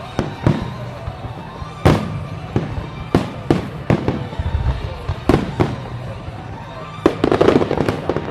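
Aerial firework shells bursting one after another, each bang followed by a rolling echo, with a rapid run of bursts and crackling near the end.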